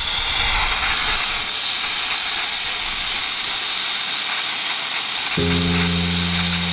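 Air hissing steadily out of the Land Cruiser's tyres as they are let down for driving on sand. Background music with held low notes comes in about five seconds in.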